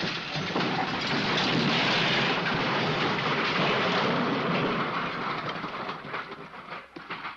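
A long crash sound effect: a dense, continuous clatter and rumble that holds for about five seconds, then thins out into scattered rattles and ticks that fade away near the end.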